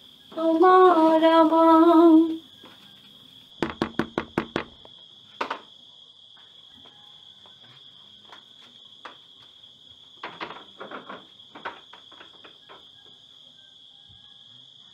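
A woman hums a few held notes. Then comes a quick series of about seven knocks on a wooden door, and later a few faint clicks and shuffles. Crickets chirr steadily underneath throughout.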